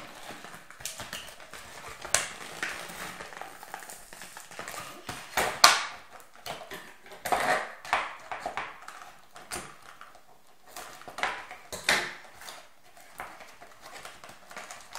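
Scissors cutting and prying into a cardboard toy box, with the cardboard scraping, tearing and knocking in irregular bursts; the packaging is hard to open.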